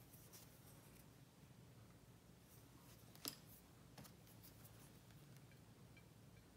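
Near silence: room tone with a steady low hum and one faint click about three seconds in, then a few faint ticks near the end.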